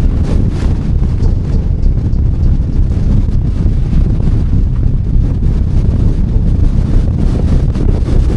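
Gale-force wind buffeting the microphone, a loud, gusting rumble strongest in the low end.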